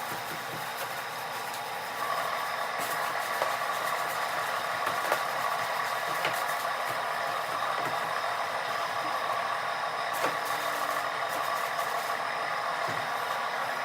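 Steady scratchy rasping with scattered clicks, the sped-up sound of wet sanding body filler by hand with a sanding block and 400-grit paper. It gets a little louder about two seconds in.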